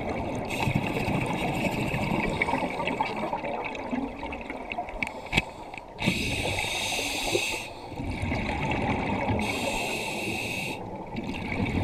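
Scuba diver breathing through a regulator, heard underwater: hissing inhalations, about three in all, alternating with the gurgle of exhaled bubbles.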